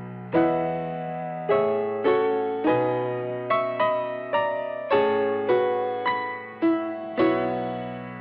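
Background music on a piano-like keyboard: chords struck one after another, about one to two a second, each ringing and fading before the next.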